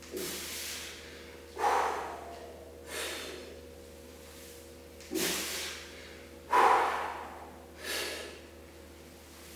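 A man's heavy, forceful breathing under a loaded barbell during a high-rep back squat set. There are six short, sharp, hissing breaths about every second and a half, two of them much louder: the breathing of hard effort between reps.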